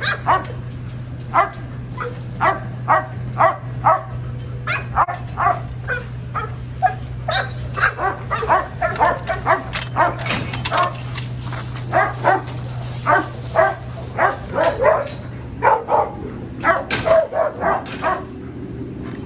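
Shelter dogs barking over and over, short sharp barks coming thick and fast in the middle, over a steady low hum.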